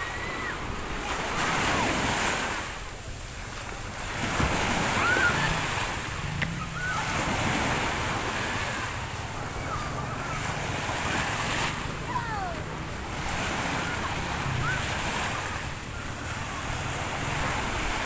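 Sea waves breaking and washing on a shore, with wind, swelling and easing every few seconds.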